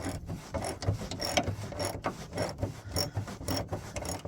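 Hand ratchet wrench clicking in a run of short strokes while loosening the bolts that hold a pickup's hood latch mechanism.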